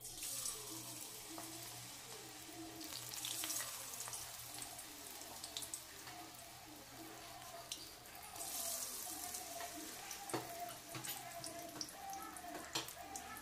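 Cauliflower pakoras deep-frying in hot oil, a steady sizzle with sharp crackles that starts as the battered pieces go into the oil. The sizzle flares louder twice.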